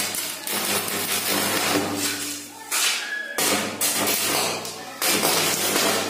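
Electric welding arc crackling and sputtering from a stick-welding rod on a steel bar, fed from mains power through a salt-water resistor, with a buzzing mains hum under it. The arc breaks off briefly about three seconds in, then is struck again.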